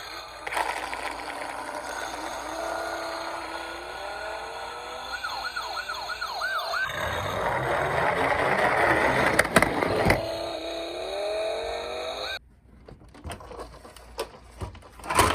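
Electronic sirens of toy ambulances and police cars sounding together, several tones overlapping, with a quick repeated up-down warble about a third of the way in. About halfway a rumbling noise joins with a couple of sharp knocks, and everything cuts off abruptly near the end.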